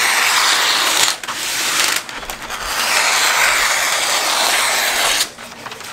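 Scissors cutting through a sheet of parchment paper with a crisp, scratchy rasp. There is a short break about a second in and a longer lull around two seconds in, and it stops a little after five seconds.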